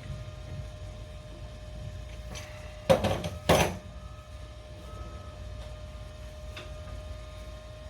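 Two loud knocks about half a second apart, a few seconds in, over a steady machine hum.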